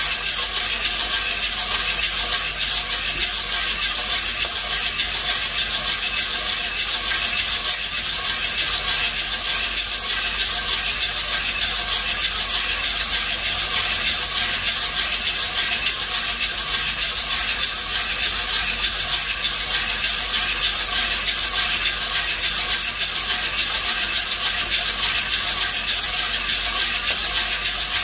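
Green Caturra coffee beans tumbling and rattling in a hand-cranked perforated metal drum roaster, turned steadily early in the roast. The rattle is continuous and even, with no cracking.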